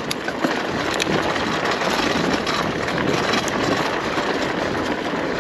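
WaltX Dune 1 fat-tyre bicycle rolling fast over a gravel dirt track: a steady rumble of the wide tyres on loose stones, with scattered small clicks and rattles.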